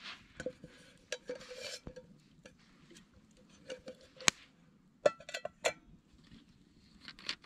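Metal camp cookware being handled: irregular knocks and clinks, a few ringing briefly, with a busy cluster about five seconds in.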